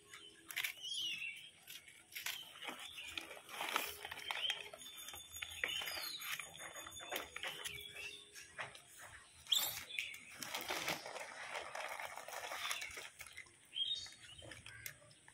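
Scattered light clicks and rustling, with a few short, high bird chirps in the background.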